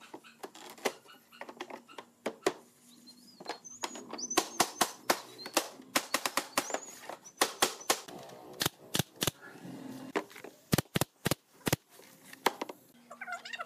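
Hammer blows on wooden boards: a long series of sharp, irregular strikes, with a quick run of four near the end.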